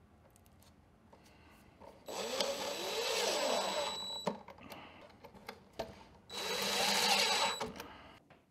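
DeWalt 20V cordless driver driving screws into a wooden strip in two runs of about two seconds each, the motor's pitch sweeping up and down as each screw goes in. Small handling clicks come before and between the runs.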